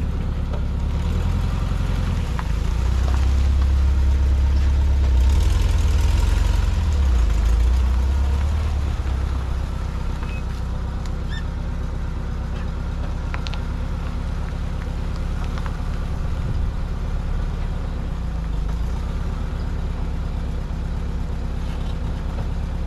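VW T2 camper van's engine running as the van drives slowly, growing louder about three seconds in and easing back after about eight seconds.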